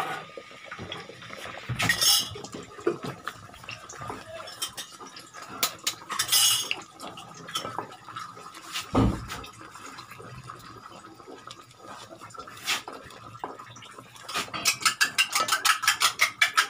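Scattered clinks and knocks of a utensil against a pot and a bowl, with one dull thump about nine seconds in. Near the end, fast, even clicking of a utensil against a bowl as an egg is beaten, about nine strokes a second.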